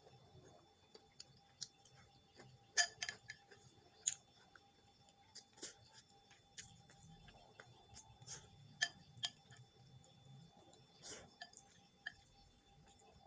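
Eating sounds: chewing, with irregular clicks and taps of utensils against a dish. The clearest clicks come about three, four and eleven seconds in.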